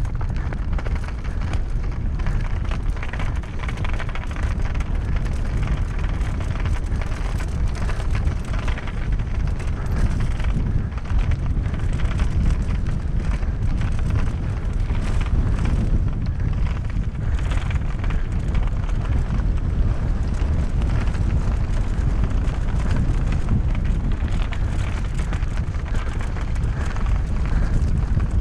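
Wind buffeting the camera microphone as a Knolly Fugitive LT mountain bike descends a dirt trail at speed, with the tyres rolling over the ground and the bike clattering over rough terrain in many short clicks and rattles.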